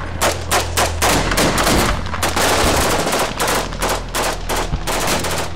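Sustained small-arms fire: many rapid shots in close succession, typical of automatic rifle and machine-gun fire, with a steady low hum underneath.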